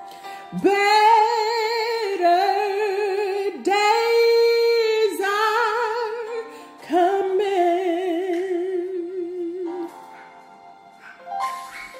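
A woman singing a gospel song in a wordless run of long held notes with a wide vibrato, in several phrases, dropping to softer held tones about ten seconds in.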